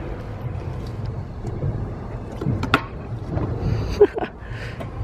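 Stunt scooter's wheels rolling on rough concrete, with a few sharp clicks from the deck and wheels as tricks are done, the loudest about three and four seconds in.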